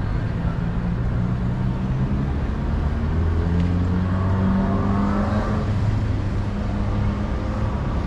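City street traffic: a motor vehicle engine running with a steady low hum, rising in pitch about halfway through as it accelerates.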